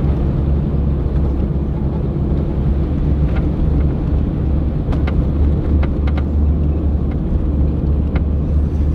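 Toyota Land Cruiser FZJ80 heard from inside the cabin while driving: a steady low drone of engine and tyres on a wet road. A few faint clicks or rattles come about midway and once near the end.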